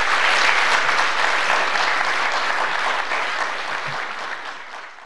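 Audience applauding, a dense patter of many hands clapping that fades steadily away near the end.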